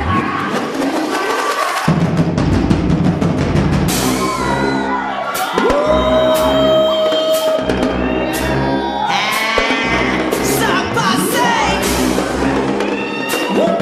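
Dance performance music: a produced track with a drum beat and synth effects, with pitch sweeps falling about five seconds in and rising near eleven seconds, and a held tone in between.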